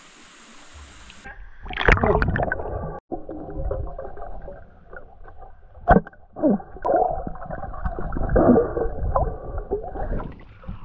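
Underwater sound of a snorkeller diving in a shallow river. About a second in, the microphone goes under and the sound turns muffled, with churning, gurgling water and bubbles. One sharp knock comes near the middle.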